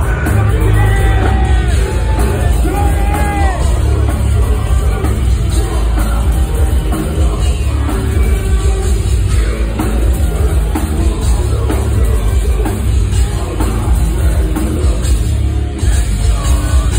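Industrial metal band playing live and loud: heavily distorted electric guitar over bass and pounding drums.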